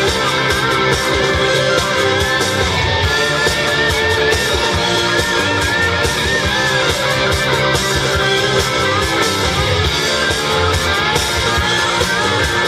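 Live rock band playing electric guitars, bass guitar and drums. A wavering lead line with vibrato rides high above the band from about two to seven seconds in.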